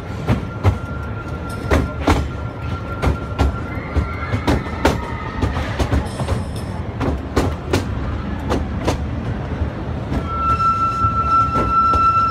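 Small theme-park train's wheels running over rail joints: clickety-clack in quick pairs about every second and a half over a low rumble. From about ten seconds in, a high steady wheel squeal rises as the train takes a curve.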